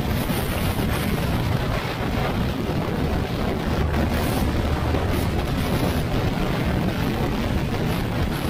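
Yamaha NMAX scooter with an RS8 aftermarket CVT running at road speed, mostly covered by a steady rush of wind on the microphone.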